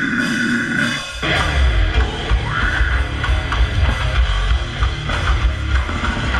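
Death metal band playing a slam song live through a club PA. A long held vocal growl breaks off about a second in, then the full band crashes in with distorted guitars and heavy kick drums.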